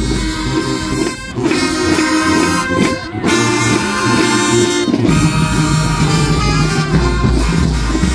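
Marching band playing loudly: brass carrying the tune over a deep bass line.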